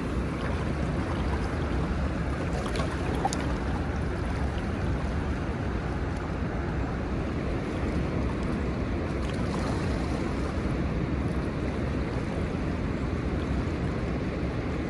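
Steady rush of fast-flowing river current below a dam, with wind on the microphone.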